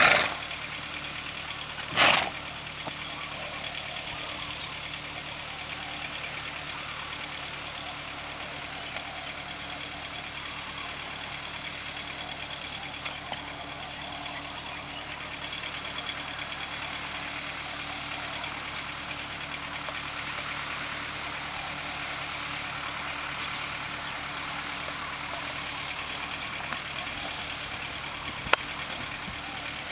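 A steady, low, engine-like hum runs throughout under a faint high hiss. Two short, loud, noisy bursts come about two seconds apart near the start, and a single sharp click comes near the end.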